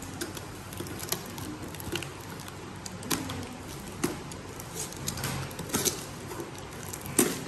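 Parcel contents being handled and unwrapped: scattered rustles of packaging and light clicks, about one a second.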